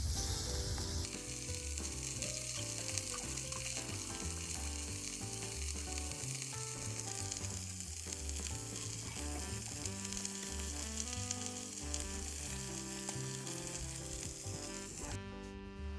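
Food sizzling and frying in a hot iron mess tin, a steady crackling hiss that stops shortly before the end, with background music underneath.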